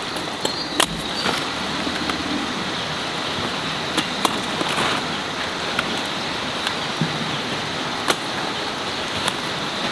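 A broad-bladed knife cutting through plant stems in scattered short, sharp strikes, over a steady outdoor hiss.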